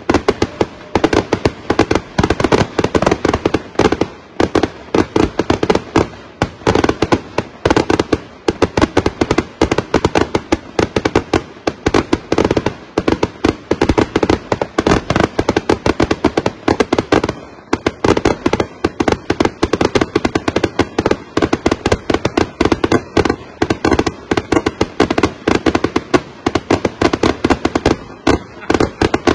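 Finale barrage of Flaming Wolf 1.5-inch ball salutes going off in rapid, unbroken succession, many bangs a second, heard from about a block away.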